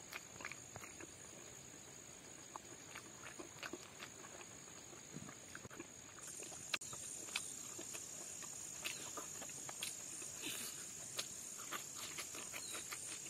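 Close-up chewing and smacking mouth sounds of a man eating pork and rice by hand, in scattered short wet clicks. A steady high-pitched hum runs behind them and gets louder about six seconds in.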